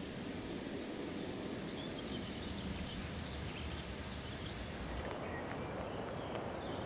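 Outdoor nature ambience: a steady background hiss with faint, scattered bird chirps.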